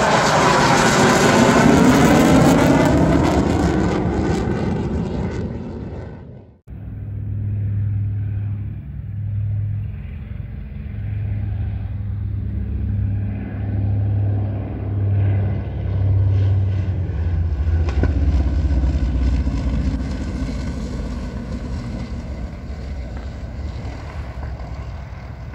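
An F-16's Pratt & Whitney F100 turbofan passing overhead: loud jet noise with a sweeping, phasing whoosh that fades over about six seconds. After an abrupt cut, the low drone of a B-25 Mitchell's two radial piston engines comes in. It swells and fades in a slow pulse, is loudest about two-thirds of the way through, and dies away near the end.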